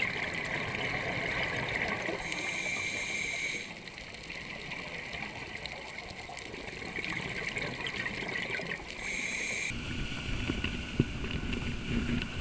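Scuba regulator breathing heard underwater: bubbling and gurgling, with a thin whistling hiss twice. About ten seconds in it cuts to the low, steady noise of a dive boat's motor and wind at speed.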